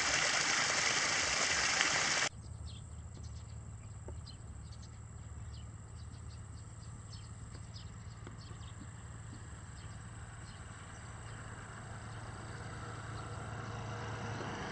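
Water pouring over a small spillway in a rice-paddy bank into a flooded channel, cutting off suddenly about two seconds in. Then a much quieter open-field background: a steady low hum with a thin high buzz and scattered short, high chirps.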